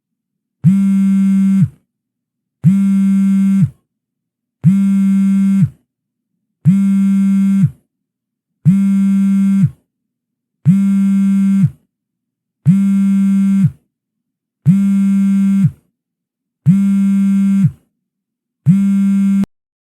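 Phone vibration ringtone: a low buzz about a second long, repeated every two seconds with silence between, ten times in a row.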